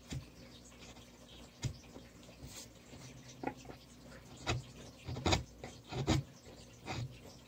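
Hand wood-carving chisel cutting into a wooden board: a string of short, irregular scraping cuts as chips are pared away along a stop cut, the strongest cuts in the middle and latter part.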